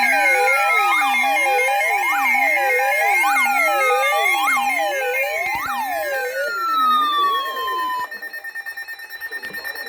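Layered electronic alarm tones: a siren wails up and down about once a second over steady alert tones, while a long whistle-like tone falls slowly in pitch. About eight seconds in these stop, and a softer, rapidly pulsing high beep is left.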